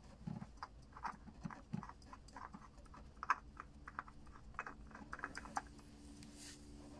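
Faint, irregular small clicks and rubbing of hands threading a new oil filter onto a Yanmar marine diesel engine by hand.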